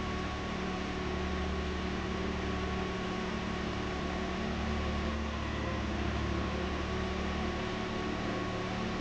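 Predator 10,000-watt generator running steadily: a constant low hum with a continuous hiss over it.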